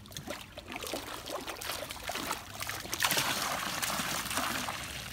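Great Dane lapping water from a pool with irregular small splashes, then lifting its head about three seconds in, with water streaming and dripping loudly from its jowls back into the pool.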